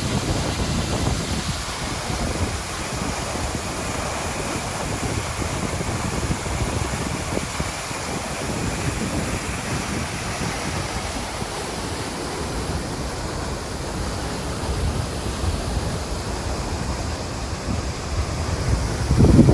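Waterfall rushing in a steady roar of falling water, with wind buffeting the microphone in low gusts, the strongest near the end.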